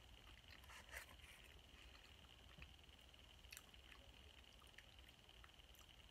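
Near silence: room tone with a faint steady high whine and a few faint clicks, the strongest about a second in. These are small eating sounds of a spoon and chewing soup with crackers.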